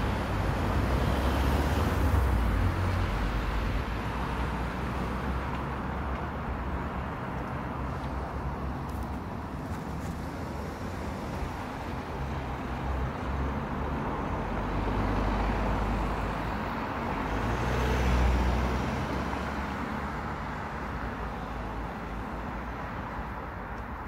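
Road traffic, a steady rush of passing vehicles. It swells louder twice, once near the start and again about two-thirds of the way through, as vehicles go by.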